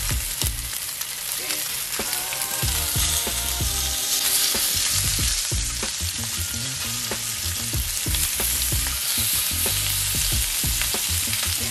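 Lamb chops sizzling steadily in hot olive oil in a frying pan as more chops are laid in one at a time.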